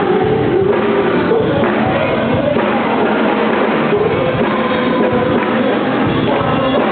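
Loud music with singing, guitar and drums.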